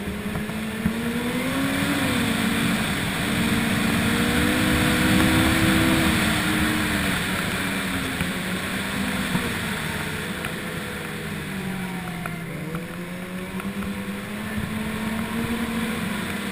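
Snowmobile engine running under way, its pitch rising over the first few seconds, easing off past the middle, then climbing again near the end, with a steady hiss of wind and track underneath.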